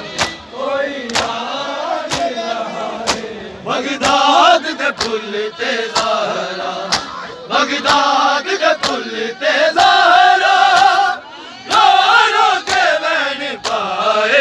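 Crowd of mourners chanting a noha in unison, with sharp slaps of hands striking bare chests in matam about once a second, keeping time with the chant.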